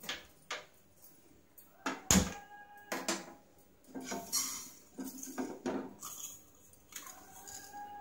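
Kitchen utensils clinking and knocking as moong dal is tipped from a steel tumbler into a pot on a gas stove and stirred with a wooden spatula. Scattered knocks, the loudest about two seconds in, with a couple of short metallic rings.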